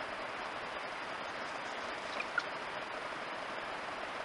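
Steady background hiss with two short, high squeaks about two seconds in, from a wild rabbit.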